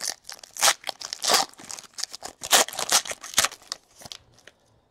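Foil trading-card pack wrapper being torn open and crinkled by hand: a run of irregular crackling and tearing that stops near the end.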